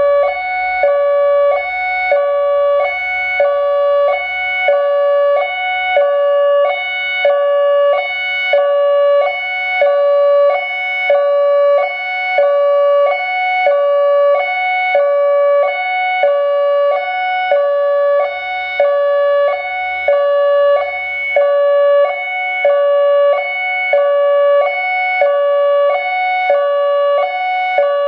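ACA Alertronic AL-4000 analog electronic warning siren sounding its hi-lo tone for a scheduled test, loud and switching steadily between a lower and a higher pitch about once a second.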